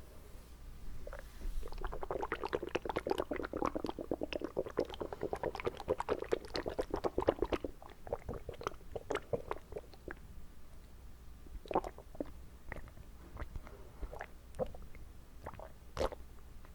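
Water swished around inside a mouth: a dense run of rapid wet clicks and gurgles from about a second and a half in until around eight seconds, then scattered wet clicks and pops.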